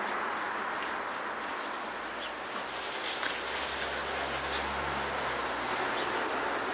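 Puppies' paws scrabbling and scuffling on loose gravel as they play, a steady crunchy rustle with many small clicks.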